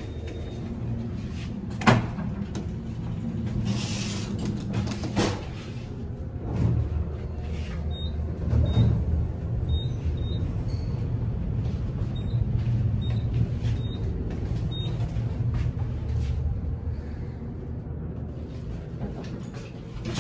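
Elevator lobby and car sounds: a steady low hum, a sharp knock about two seconds in, the swish of sliding elevator doors, and a series of short high beeps in the middle.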